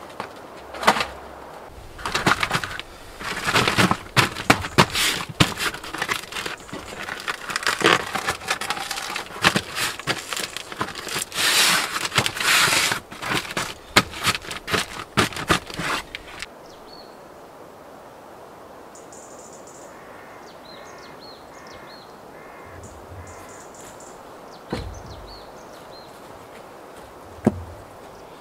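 A stiff black sheet rustling, crackling and scraping as it is handled and laid flat on the ground, in an irregular run of noises that stops about sixteen seconds in. Then it is quiet, with a few faint bird calls and two dull thumps near the end.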